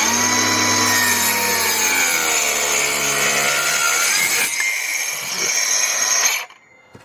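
A cheap 18 V cordless circular saw with a 125 mm blade, a Makita knock-off, cuts through a thick piece of timber that has a big knot in it. The motor's pitch sags in the middle of the cut and picks back up, and the saw stops suddenly about six and a half seconds in.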